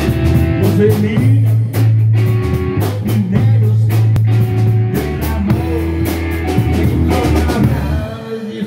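Live blues band playing: an electric bass holds long low notes over a drum kit beat with cymbal hits, and other instruments sound in the middle range. The bass stops near the end.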